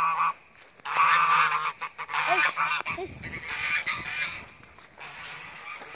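A flock of grey-and-white domestic geese honking: a run of loud, harsh calls in quick succession that grow fainter toward the end. A brief low rumble about three seconds in.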